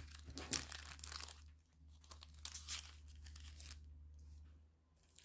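Thin clear plastic packaging sleeve crinkling and rustling in short, uneven bursts as it is handled and pressed flat, busiest in the first second and a half. A steady low hum runs underneath.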